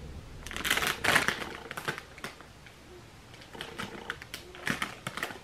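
Plastic snack bag of corn puffs crinkling as it is handled and turned over: a burst of crackling about half a second in, scattered clicks, then a second bout of crinkling near the end.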